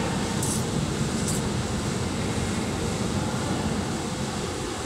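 Steady low rumble of diesel engines and ventilation in a ferry's enclosed steel car deck, as a loaded dump truck manoeuvres inside. Two short hisses sound about half a second and just over a second in.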